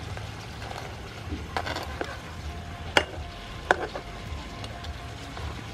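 Lobster pieces in sauce sizzling in a frying pan while a metal spatula stirs and turns them, scraping and clicking against the pan. The two sharpest knocks come about three seconds in and again a moment later.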